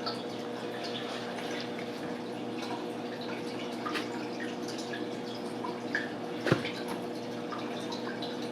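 Water dripping with scattered small ticks over a steady hum, and one sharper knock about six and a half seconds in.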